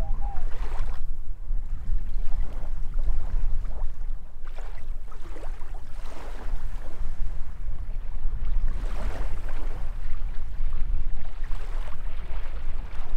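Wind buffeting the microphone with a steady low rumble, over small waves washing on the sandy shore.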